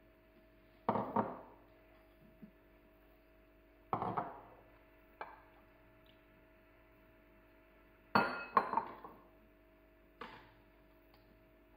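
White ceramic bowls clinking and knocking against a small saucepan as ingredients are tipped in: a handful of separate sharp clinks with short ringing, the loudest a quick group of three about two-thirds through.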